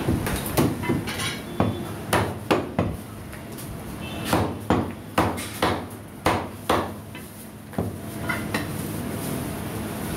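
Butcher's cleaver chopping mutton on a wooden block: a dozen or more sharp chops in uneven runs, with a short pause about three seconds in.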